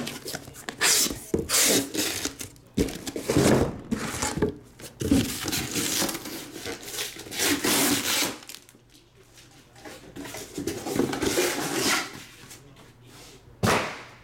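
Cardboard shipping carton being opened and shrink-wrapped trading-card boxes lifted out and stacked: rustling and scraping of cardboard and plastic wrap, with knocks as boxes are set down and a sharp thud near the end.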